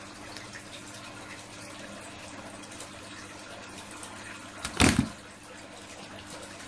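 Aquarium water running and trickling over a steady low hum, with one brief, loud burst of noise a little under five seconds in.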